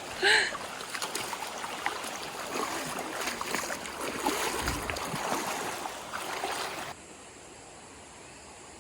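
River water splashing and rushing, with small scattered knocks, as people wade in a shallow river; it cuts off abruptly about seven seconds in, leaving a faint steady hiss. A short voice exclamation comes right at the start.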